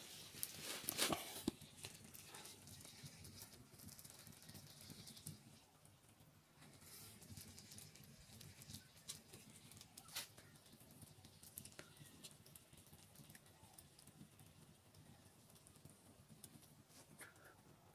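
Near silence with faint scattered clicks and crackles, and a few sharper knocks about a second in and again about ten seconds in.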